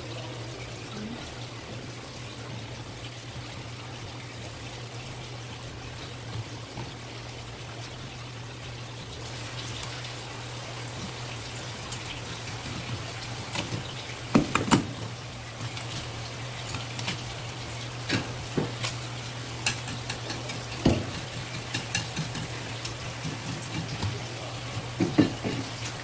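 Knife and gloved hands working a red sea bream fillet on a plastic cutting board, giving scattered knocks, taps and scrapes that come more often in the second half. A steady low hum runs underneath.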